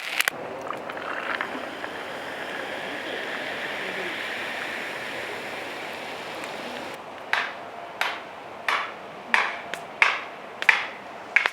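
Food sizzling steadily in a hot pan over the fire, then a run of about seven sharp metallic strikes with short ringing tails, roughly one and a half a second, in the last few seconds.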